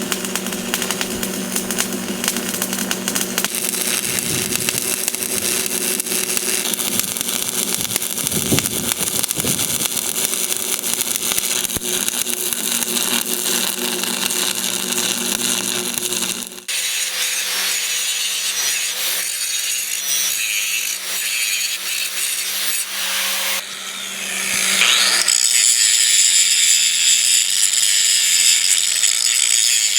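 Stick-welding arc crackling steadily as a bead is laid along the anvil's edge. About 16 seconds in the sound changes abruptly, and from about 24 seconds a louder, steady, high-pitched whine with a short upward sweep takes over.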